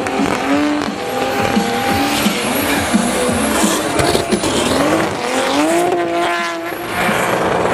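BMW engine revving hard through a burnout, its rear tyres spinning and squealing. The revs waver, then climb steeply about five and a half seconds in.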